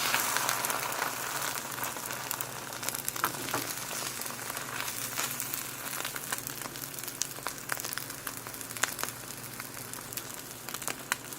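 Eggs frying in a pan: a steady sizzle dotted with frequent sharp pops and crackles, slowly dying down.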